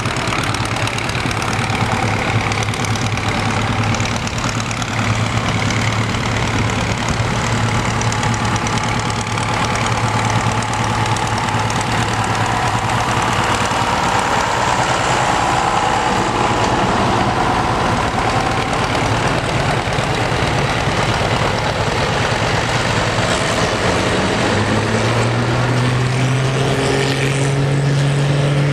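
Farm tractor engines running steadily on a dirt pulling track. Near the end a closer engine's deep note comes in strongly and climbs slightly.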